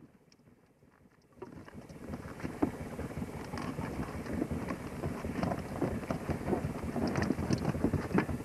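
Wind buffeting the microphone, starting suddenly about a second and a half in and growing a little louder, with many small crackles and clicks through it.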